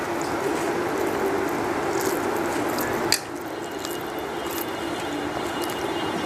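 Fingers squishing and mixing rice with curry on a steel plate, with wet chewing and mouth sounds close to the microphone, and a sharp click a little after three seconds.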